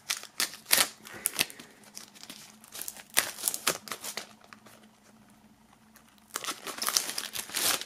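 Plastic shrink-wrap film being torn open and peeled off a CD digipak, crackling and crinkling in sharp snaps, with a lull of a couple of seconds past the middle and a denser run of crinkling near the end.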